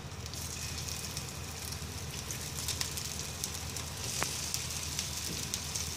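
Hot oil sizzling and crackling in a nonstick frying pan as pieces of kothimbir vadi (coriander and gram-flour cakes) are laid in to shallow-fry: a steady hiss with many small crackles, getting brighter about half a second in.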